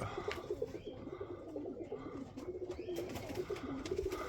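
Several domestic pigeons cooing softly with short, low coos, along with a few light taps.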